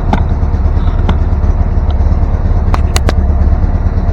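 Small gasoline engine of a VC13C mini excavator running steadily, with a few sharp metallic clicks or knocks over it, two in quick succession about three seconds in.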